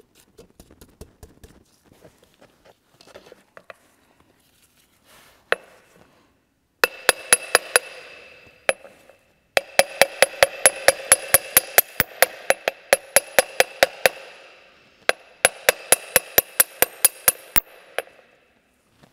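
Hammer tapping a seal installer sleeve to drive a new crankshaft oil seal into the transmission side of an Opel A16XER engine block. A few light taps, then three fast runs of about five to six ringing blows a second.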